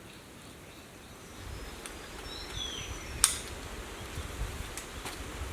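Outdoor ambience of wind rumbling on the microphone, building from about a second and a half in, with a few short high bird chirps and a falling whistle. A single sharp click about three seconds in is the loudest sound.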